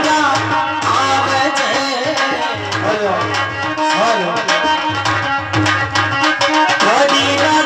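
Live Indian folk music without vocals: a hand drum plays a steady rhythm under a melody line.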